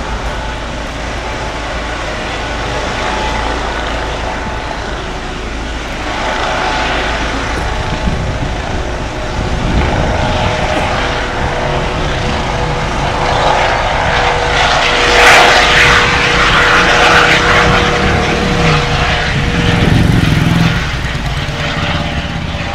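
Eurocopter EC135 twin-turbine helicopter hovering low: steady rotor noise with a turbine whine, swelling louder toward the middle and easing off near the end.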